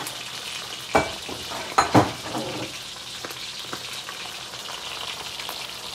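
Milkfish frying in a pan of hot oil, a steady sizzle without spitting, since the fish was dusted with a little flour. Two sharp knocks sound about one and two seconds in, the second the loudest.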